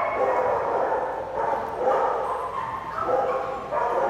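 A dog whining and yipping over and over, a string of short high-pitched whines about one every half second to second: the dog wants to play with another dog.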